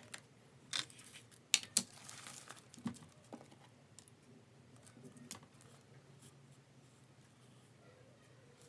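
Light clicks and rustling of desk items being handled: gel pens lifted from a clear plastic pen case and paper moved, with a few sharp clicks in the first half or so and a short rustle about two seconds in, then it goes quiet apart from a faint click or two.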